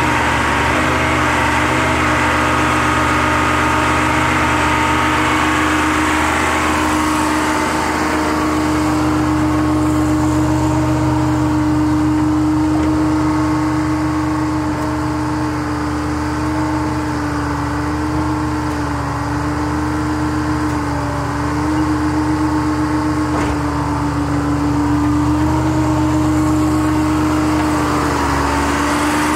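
A Gradall excavator's engine runs steadily with a constant whine while the upper swings and the telescoping boom extends and retracts. The pitch sags briefly a few times, as if under load.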